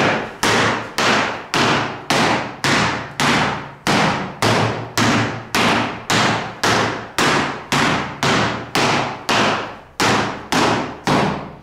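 A long, even series of hard knocks, about twenty of them at close to two a second, each ringing briefly before the next.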